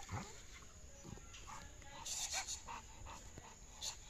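Pit bull panting, with louder rasping breaths about two seconds in and again near the end.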